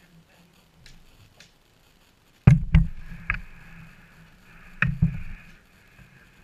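An adult chocolate Labrador climbing into a wooden whelping box: several sharp knocks and heavy thumps about two and a half seconds in, then another pair about five seconds in. A faint high whine sounds between them.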